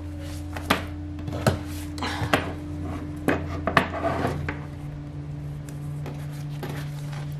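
Leather and tools being handled on a wooden tabletop: a handful of light clicks and knocks with soft rustling of the leather, over a steady low hum.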